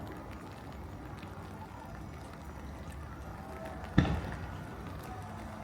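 One aerial firework shell bursting about four seconds in: a single sharp bang with a short rolling echo, over low steady background noise.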